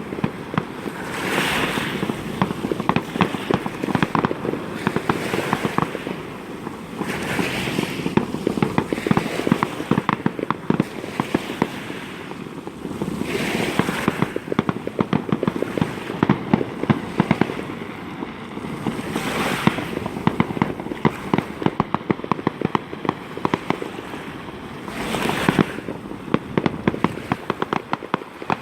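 Fireworks display: a dense, continuous rattle of rapid bangs and crackles, with a louder surge about every six seconds.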